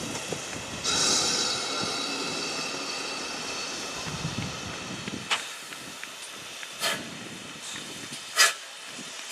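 Steam hissing from a GWR 57xx pannier tank locomotive, starting suddenly about a second in and slowly fading over the next few seconds, followed by three sharp metallic knocks, the last the loudest.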